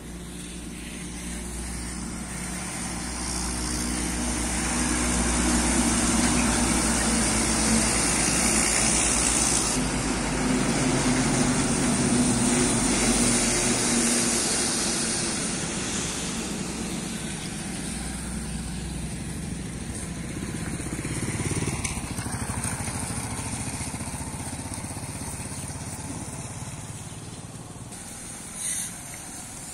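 Heavy multi-axle tipper truck's diesel engine driving past, growing louder over the first few seconds, loudest through the middle, then fading slowly into the distance.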